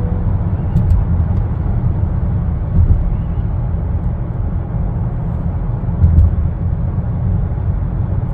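Inside a moving 10th-generation Honda Accord: steady low road and tyre rumble, with a couple of brief louder bumps about three and six seconds in.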